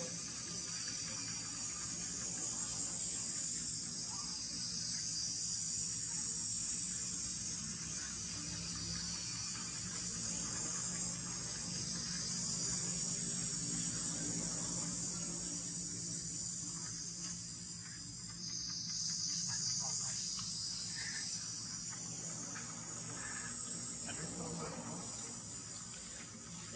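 A steady, high-pitched chorus of insects shrilling without a break.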